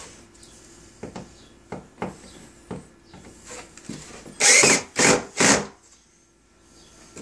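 A few light knocks of wooden parts being handled, then three short loud bursts of a power drill driving screws into the plywood wheel assembly, in quick succession about four and a half seconds in.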